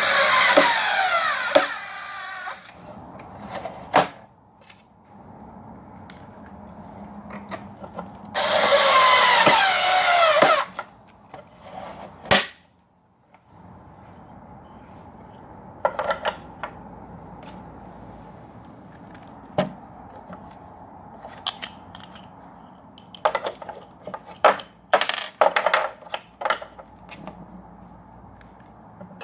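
Power drill running in two bursts of about two seconds each, its pitch dropping as it slows, with scattered clicks and knocks of the table-leg parts being handled in between.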